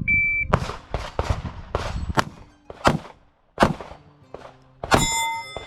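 An electronic shot timer gives one short high start beep, then a string of about ten pistol shots at uneven intervals follows, closely spaced at first and spreading out toward the end.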